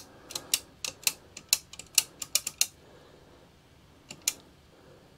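A quick run of sharp key clicks, about a dozen in under three seconds, then two more near the end: keys being pressed to set up a call.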